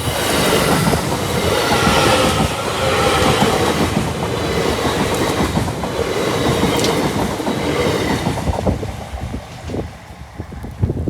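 TransPennine Express Class 802 train passing by: a loud rush of wheel and rail noise with some steady whining tones, dying away about nine seconds in.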